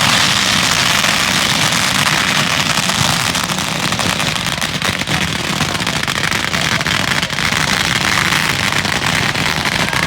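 Dense, continuous crackling of fireworks, many small pops running together into a steady loud clatter.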